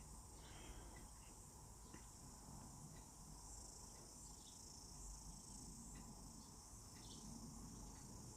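Near silence: a faint, steady high-pitched hiss, with a few soft ticks.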